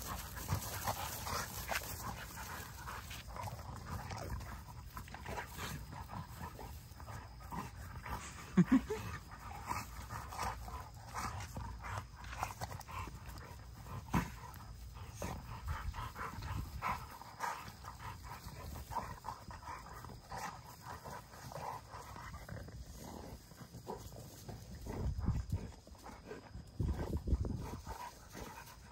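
XL bully dogs wrestling on grass: panting, scuffling and jostling, with one brief, loud dog call about nine seconds in.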